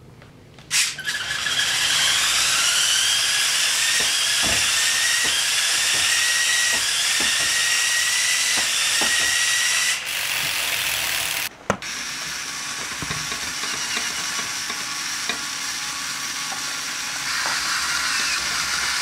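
A VEX robot's flywheel ball shooter spins up with a rushing whoosh and a slowly rising whine. A steady series of knocks follows, about three every two seconds, as balls are fired. The sound breaks off briefly about halfway through, then the motors' steady whir resumes.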